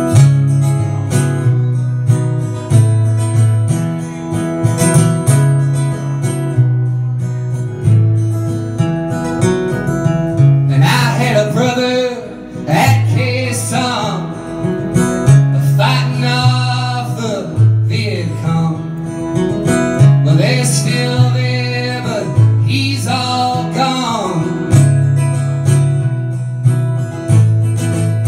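Acoustic guitar strummed in a steady, repeating rhythm in a solo live performance. Through the middle of the passage a male voice sings long, bending notes over the guitar without clear words.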